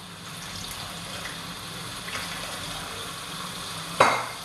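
Water poured from a glass jug into a wok of hot sweet and sour sauce, a steady splashing hiss. About four seconds in, a single sharp knock.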